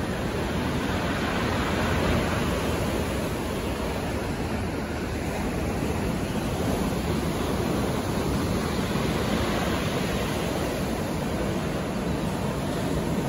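Rough sea surf breaking and washing up onto a pebble beach: a continuous rush of breaking waves that swells slightly about two seconds in.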